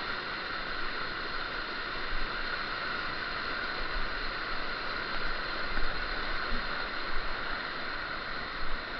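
Steady rush of flowing brook water, with a few brief louder surges in the second half.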